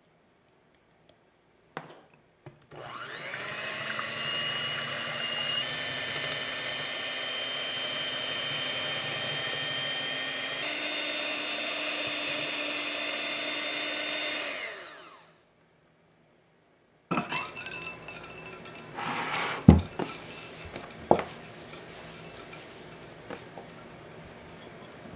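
Electric hand mixer with twin beaters whipping heavy cream and sugar in a glass bowl: a steady motor whine for about twelve seconds, its tone shifting a couple of times, then it stops. After a short pause, a silicone spatula scrapes and folds cream in a glass bowl, with a few knocks against the glass.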